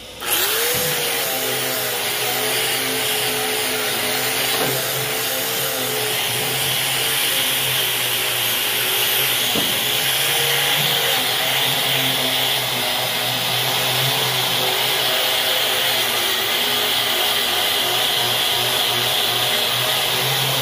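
Corded Milwaukee angle grinder with a wire cup brush, switched on just after the start and then running steadily as it scrubs rust and dirt off steel corn head deck plates. Its motor pitch wavers slightly as the brush is pressed against the metal.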